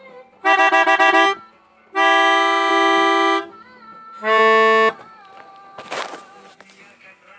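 Telolet bus horn, a set of musical multi-tone horns, sounding three times: a quick run of changing notes, a held chord of about a second and a half, then a short two-note blast. About a second after the last blast comes a brief rush of noise.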